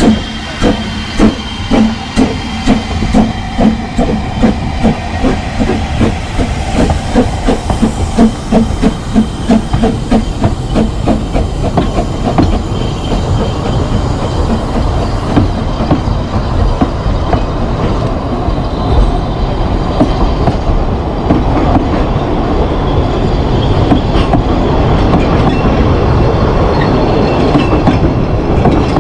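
Ffestiniog Railway Double Fairlie narrow-gauge steam locomotive pulling away, its exhaust beats quickening from under two to about three a second. After about twelve seconds the beats give way to the rumble and clatter of the passing carriages' wheels on the rails, which grows a little louder near the end.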